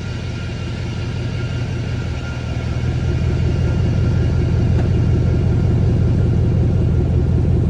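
2011 Ford Mustang's rear axle whirring: a steady whine over a heavy low rumble of the moving car. The whine is clearest early on and fades as the rumble grows louder about three seconds in. The owner is unsure whether this whir is normal.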